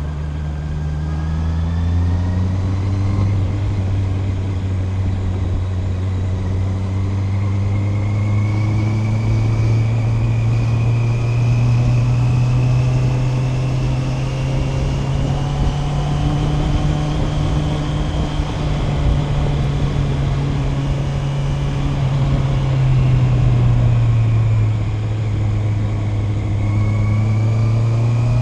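Honda CB650R's 649 cc inline-four engine pulling while the bike is ridden, with wind rushing past. The revs climb in the first couple of seconds, then hold and slowly rise. About three-quarters of the way through they dip briefly and pick up again.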